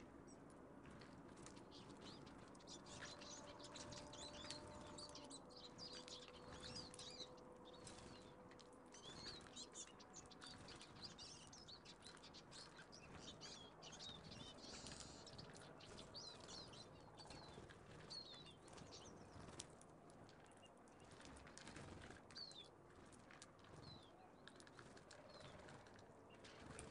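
Faint chirping and twittering of small songbirds, many short high calls in a row, with brief wing flutters and small clicks as birds land, feed and take off at a seed feeder.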